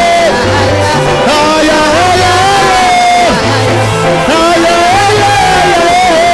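Live gospel praise-and-worship music: a sung melody of long, wavering held notes over a band with a repeating bass line.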